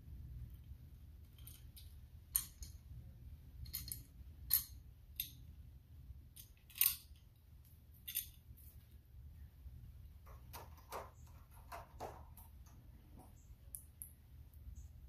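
Irregular metallic clicks and clinks as the parts of an Xtenda-Leg ladder leg extension are handled and fitted: the steel bracket, its bolts and the aluminium leg tube. A low steady hum runs underneath.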